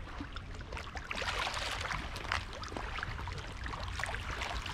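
Small ripples lapping and trickling at a sandy sea shore, a soft steady wash broken by many small splashes, over a low steady rumble.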